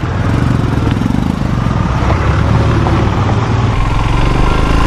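Royal Enfield Himalayan's single-cylinder engine running steadily as the motorcycle rides along the road.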